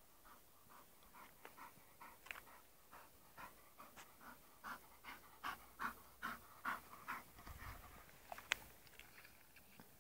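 A bull terrier panting in quick, even breaths, louder in the middle, with a single sharp click about two thirds of the way through.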